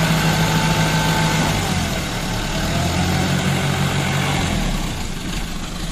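Truck engine idling steadily, a low running note that shifts slightly about one and a half to two seconds in.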